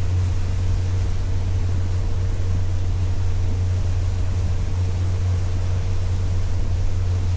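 A boat's motor running steadily at constant speed, a low even drone with a faint steady higher tone.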